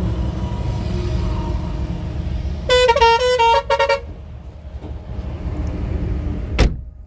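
Mahindra Bolero BS6 diesel engine idling steadily, freshly started and still warming up, with coolant at about 54 °C. Just under three seconds in, a vehicle horn toots in a quick string of short honks lasting about a second and a half. A single sharp knock comes near the end.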